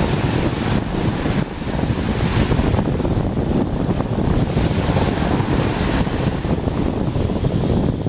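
Small sea waves washing in and out on a sandy beach, under heavy wind buffeting on the microphone that makes a steady low rumble.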